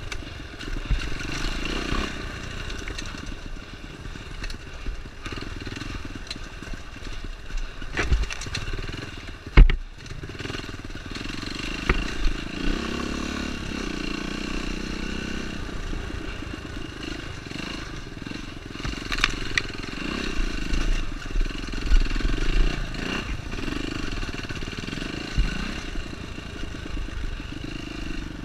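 Yamaha dirt bike's engine running as it is ridden over a rocky trail, rising and falling with the throttle. Knocks and clatter come from the bike hitting rocks, with the loudest jolt about ten seconds in.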